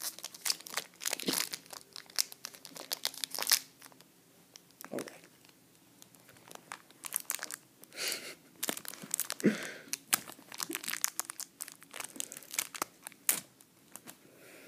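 Foil wrapper of a Pokémon card booster pack being torn open and crinkled by hand: a run of sharp crackles, a quieter stretch about halfway through, then more crinkling that dies away near the end.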